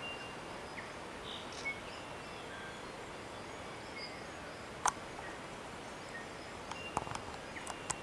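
Steady background hiss with faint, brief high chirps scattered through it. There is one sharp click about five seconds in and a quick cluster of clicks near the end.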